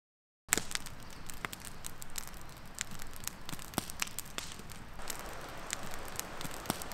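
Wood campfire of split logs burning, crackling with frequent sharp, irregular pops over a steady hiss; it starts abruptly about half a second in after a moment of silence.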